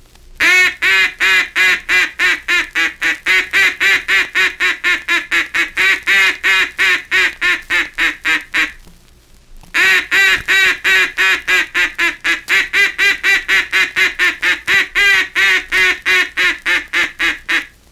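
A hard rubber mallard duck call blown in the long call or greeting call, the call used to hail ducks still far off. It is a long run of loud, rapid, evenly spaced quacks, about five a second, given twice with a second's break between, heard through a 78 rpm disc recording.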